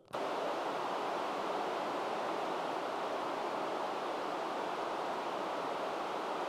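Steady radio static hiss from the ground station's amateur radio receiver. It starts abruptly just as the operator stops transmitting. No reply comes from the International Space Station, which has passed out of range.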